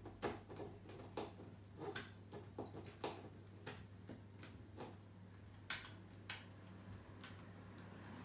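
Long-haired Chihuahua gnawing a chew bone: faint, irregular clicks and crunches of teeth on the bone, about one a second.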